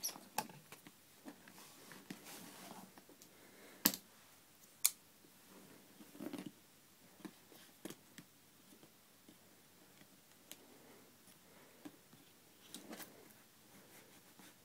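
Unboxing handling noises: faint rustling and scraping of packaging, broken by sharp clicks and taps, the two loudest about four and five seconds in.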